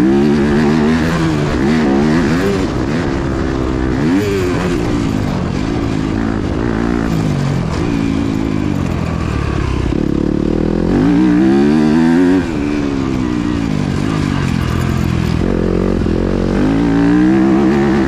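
Yamaha YZ250F four-stroke single-cylinder motocross engine revving up and down over and over as the throttle is opened and shut through the gears. About two-thirds of the way through comes a longer, louder high-rev pull that cuts off suddenly.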